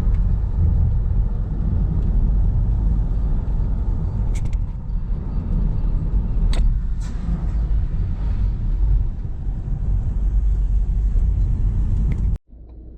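Van driving on the road: a steady low rumble of engine and road noise, with a few short clicks. It cuts off suddenly near the end.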